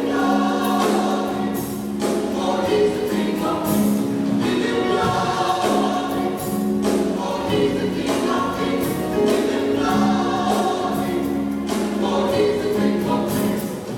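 Church choir singing a gospel song in harmony, holding long chords, over instrumental accompaniment.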